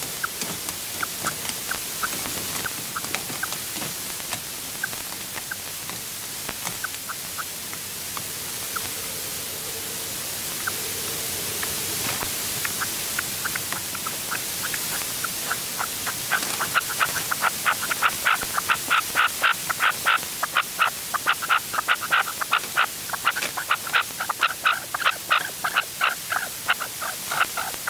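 Red-legged partridge calling: scattered short notes at first, then, past the middle, a long fast run of louder repeated notes, about five a second.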